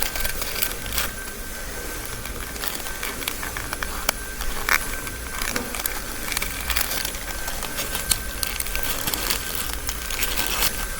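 Paper rustling and crackling with scattered small clicks as a folded paper origami model is handled and its folds pressed to lock it.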